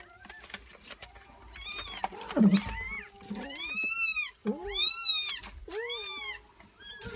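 Newborn kittens mewing: a series of high, arching mews, about one a second, starting about one and a half seconds in.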